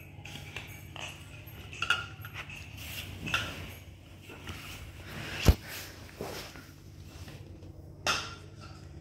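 Scattered knocks and clinks of bottles being picked up and set down, with one sharp knock about five and a half seconds in and another near the end.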